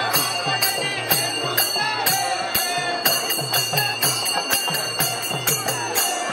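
Music with a steady beat of about four strokes a second: drum hits with jingling bells on each stroke under a wavering melody line. It cuts off abruptly at the very end.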